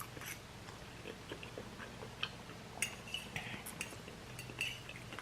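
Close-up chewing of spicy instant ramen noodles: many small wet mouth clicks and smacks, irregular, with a couple of slightly longer squelchy bits around the middle.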